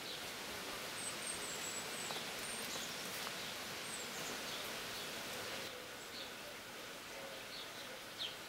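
Outdoor background hiss with faint, high bird chirps and twitters scattered through it, and a short click near the end.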